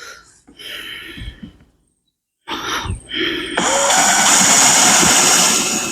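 A few short handling knocks and rustles, then about three and a half seconds in a power drill starts and runs steadily, boring a pilot hole with a 1/8-inch bit into the corner of a wooden beehive box.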